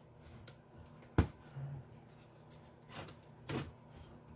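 Small hard parts being handled: a sharp click about a second in, then two softer knocks around three seconds in, over a faint low hum.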